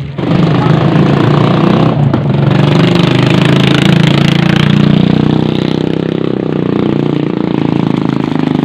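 A motor engine running steadily and loudly close by, a low wavering drone with no change in speed.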